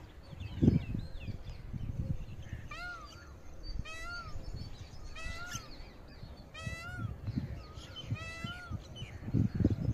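Birds calling in the open: a harsh, short call repeated about every second or so, with other faint chirps between, over low rumbling bursts near the start and end.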